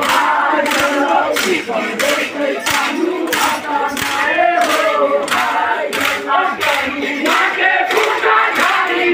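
A crowd of men and boys shouting and chanting together, over sharp hits that come about twice a second.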